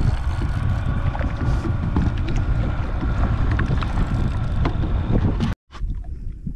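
Wind buffeting the microphone over choppy water, with small waves slapping against a plastic kayak hull in short irregular knocks. The sound breaks off abruptly near the end and returns much quieter.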